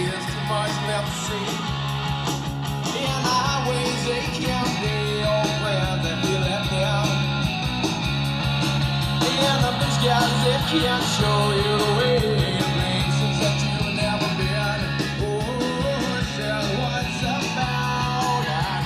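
A rock song with guitar and singing, played from an iPod through the Radio Craftsman RC-10 tube preamp's line input and out of a small amplifier and speaker.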